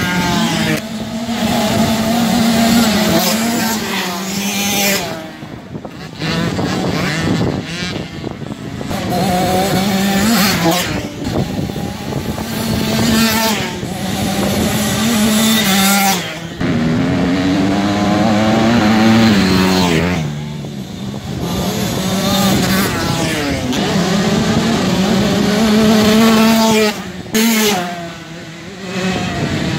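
Motocross bikes' engines revving hard as they race past one after another, pitch climbing through each gear and dropping at the shifts, with brief lulls between riders.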